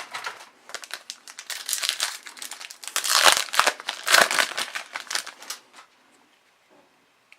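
Crinkling of a trading card pack's foil wrapper being handled and torn open, a dense run of crackles that dies away about six seconds in.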